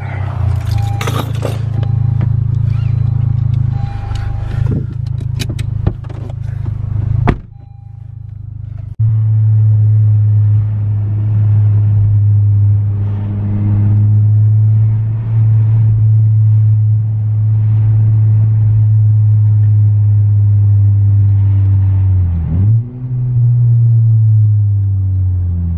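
Engine and exhaust of a Honda Civic Type R droning steadily while cruising. The sound drops off sharply about seven seconds in and returns about two seconds later. Near the end the pitch dips, then climbs again as the car accelerates.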